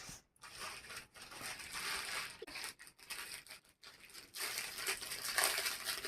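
Packaging being handled and unwrapped, an irregular rustling that gets louder in the last second and a half.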